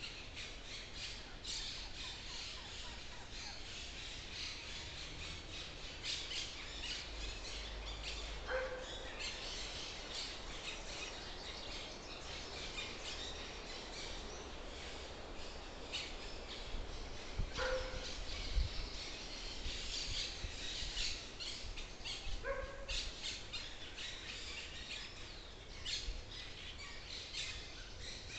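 Forest birds chirping and calling continuously, with a lower, harsher call or distant bark standing out a few times at irregular intervals.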